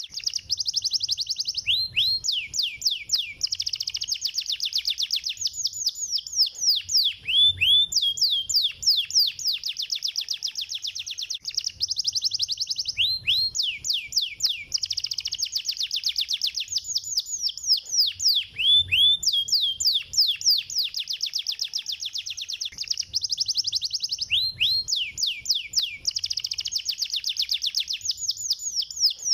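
Domestic canary singing a continuous, fast trilled song, each phrase a rapid run of repeated notes, with short breaks about every five to six seconds.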